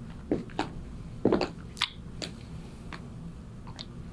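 Quiet room tone with about half a dozen faint, scattered clicks and soft taps, the strongest about a second and a quarter in.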